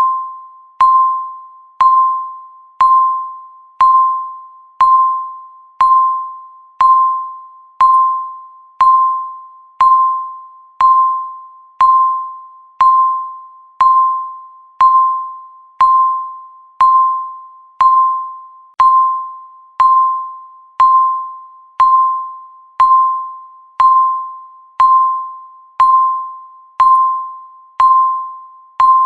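Countdown timer's tick sound: one short, clear chime-like tone a second, each with a sharp start and a quick fade, at a perfectly steady pace.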